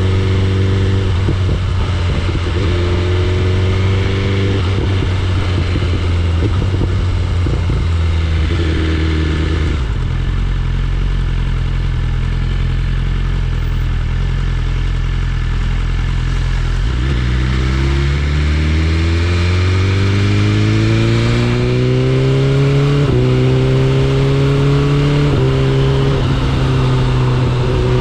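BMW S1000RR's inline-four engine under way, cruising at a steady pitch, then accelerating hard from about two-thirds of the way in with a steadily rising pitch broken by two quick upshifts near the end. Wind noise runs underneath.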